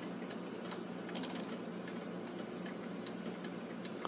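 Faint, fairly even ticking and clicking, with a brief light metallic rattle about a second in, from the brass strike-train wheels and levers of a Gilbert clock movement being turned by hand.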